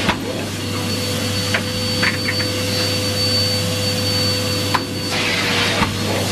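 Numatic Henry Pet canister vacuum cleaner running steadily, a motor hum with a thin whine over the rush of suction. A few light knocks come through, and the hiss brightens briefly near the end.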